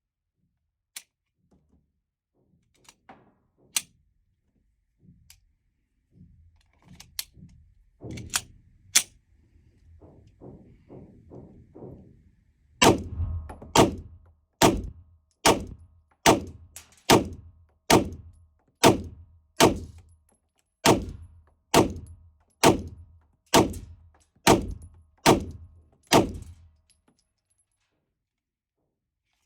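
Glock 19X 9mm pistol fired shot after shot at a steady pace, about sixteen shots a little under a second apart. Fainter, scattered shots come before them.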